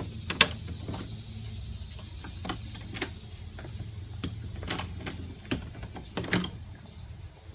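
Scattered light knocks and clicks, about half a dozen at uneven intervals, over a steady low hum.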